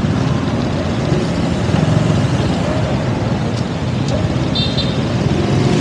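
Steady road and traffic noise with a dense low rumble, as heard while riding through traffic, with a brief high tone near the end.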